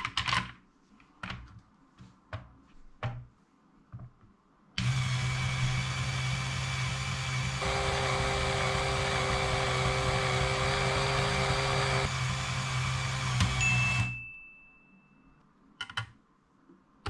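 Light plastic clicks and knocks as Lego Technic parts are handled. About five seconds in, a small electric motor and its gear train start whirring steadily as the Lego Technic column lift raises its load of tyres. The whir runs for about nine seconds before dying away, and a few more plastic clicks follow near the end.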